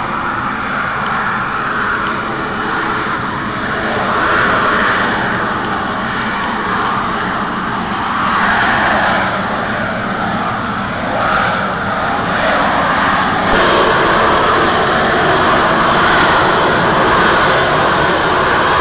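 Military jet aircraft flying overhead at low altitude, its jet engine making a loud, steady rush that grows a little louder about two-thirds of the way through.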